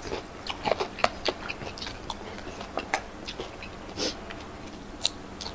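Crunching and chewing of crispy deep-fried seven-striped barb fish pieces, fried until the bones can be eaten too. Irregular crisp crackles, with a louder crunch about four seconds in and another about a second later.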